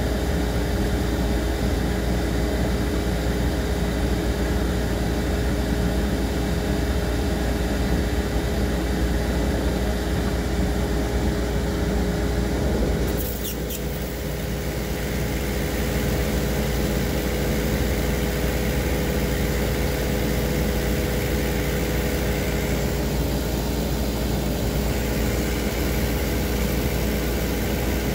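Steady electric hum of an appliance's motor and fan running, with a click about 13 s in, after which the hum goes on slightly quieter.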